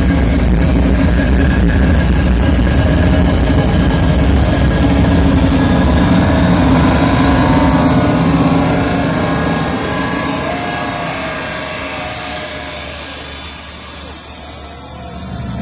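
Electronic intro build-up: a low jet-like rumble under a slowly rising whine, the deep bass dropping away about nine seconds in.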